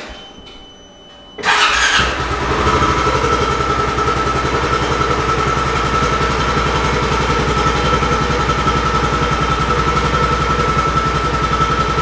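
A 2022 Polaris Ranger 570's single-cylinder engine starts about a second and a half in and settles straight into a steady idle, with a constant high whine over the running.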